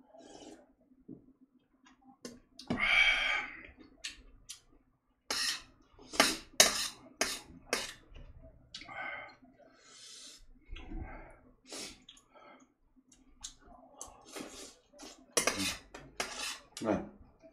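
Eating utensils clicking and scraping against a dish, in a run of short sharp knocks, with eating noises between them.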